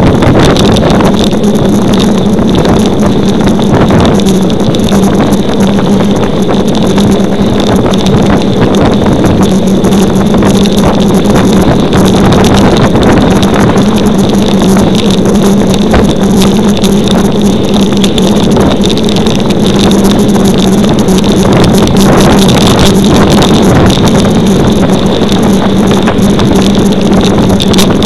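Wind rushing over a bike-mounted camera's microphone during a fast road-bike descent, loud and constant, with a steady low hum underneath.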